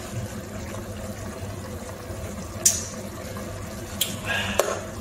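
Chicken adobo simmering in a pot, a steady bubbling of the sauce. In the second half a few sharp knocks of the spatula against the pot as it is stirred.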